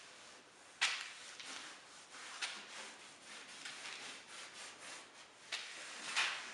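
Chalk writing on a blackboard: a run of short, scratchy strokes, the sharpest about a second in and near the end.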